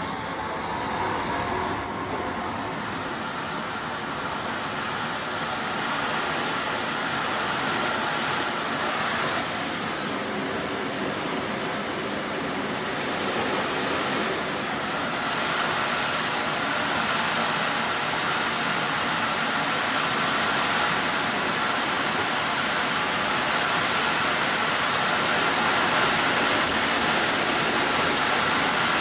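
Small turbojet engine running with a steady rushing roar and a high turbine whine that climbs quickly over the first couple of seconds as it is throttled up, then keeps edging higher as it holds at high power.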